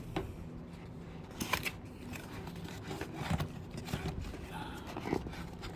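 A PC case's accessories box being opened and its contents handled: scattered clicks, scrapes and rustling, with a handful of sharper clicks spread across the few seconds.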